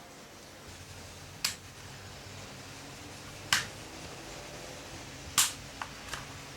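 Sharp clicks: three loud ones about two seconds apart, then two fainter ones in quick succession near the end.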